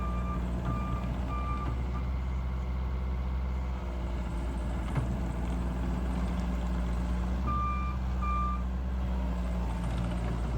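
Bobcat T110's 42-horsepower diesel engine running steadily while its backup alarm beeps, about two beeps a second at the start and twice more near the end: the machine is reversing.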